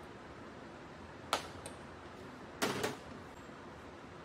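Small glass bowls clinking as oil is combined and the bowls are handled on a stainless-steel worktop: one sharp clink about a second in, then a heavier double knock a little later, over a faint steady hiss.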